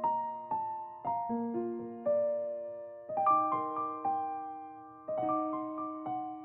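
Background music: a gentle piano melody, notes and chords struck every half second or so and left to ring.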